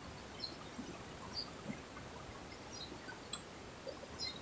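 Faint outdoor background noise with a few short, faint bird chirps scattered through it and a single faint click about three seconds in.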